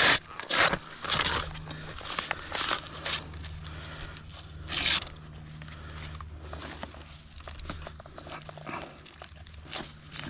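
Irregular scraping and crunching of a climber's steel spikes and gear against tree bark, in short uneven bursts, the loudest about five seconds in. A faint steady low hum runs underneath.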